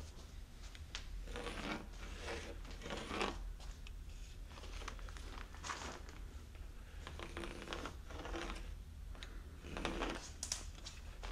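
Pencil scratching along rough-sawn timber in a series of uneven strokes, tracing a chalk line against a straightedge.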